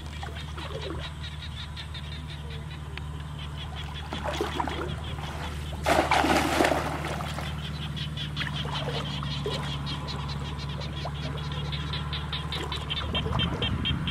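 Pond water sloshing as hands feel around underwater, with a brief louder splash about six seconds in. Behind it, a rapid, even chirping of frog calls repeats over a steady low hum.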